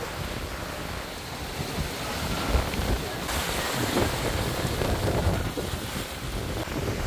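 Wind buffeting the microphone over the rush of choppy waves along a sailing catamaran's hull. It grows louder about three seconds in.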